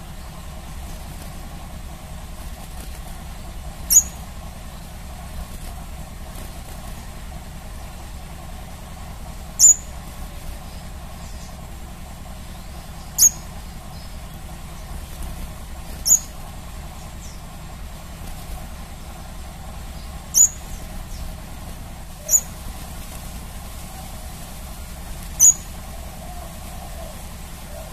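Crimson sunbird giving single short, sharp, very high chirps, each dropping quickly in pitch, seven in all at irregular gaps of two to five seconds, over a steady low background hum.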